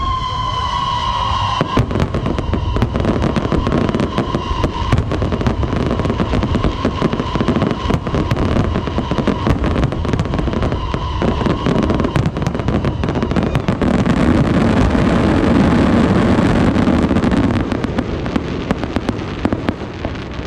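Aerial fireworks display: a high whistling tone at the start, then a dense stream of crackling pops and bangs, swelling into a loud thick barrage of bursts in the second half before easing off.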